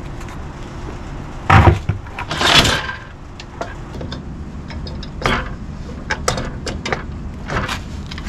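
A DeWalt DWS780 12-inch sliding miter saw is set down onto a metal stand with a heavy clunk about a second and a half in. It then scrapes as it is shifted, and a string of light metallic clicks and taps follows as its base is lined up over the mounting bolts.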